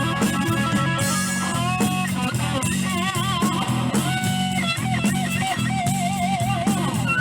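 Blues band playing live: a lead guitar solo with pitch bends and wide vibrato over a steady accompaniment with drums.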